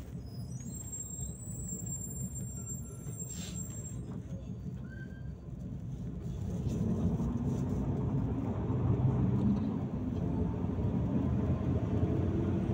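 Volgabus-5270 city bus heard from inside while driving: steady low engine and road rumble, with the engine note getting louder and rising in pitch about six seconds in as the bus picks up speed.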